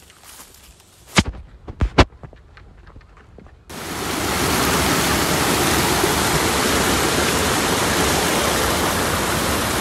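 Three sharp knocks close together, then about four seconds in a sudden, steady rushing noise sets in, like running water.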